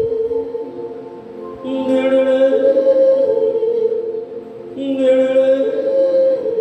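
A man singing a Hindi film song into a microphone through a PA, in slow phrases of long held notes that step down in pitch, over a steady sustained accompaniment.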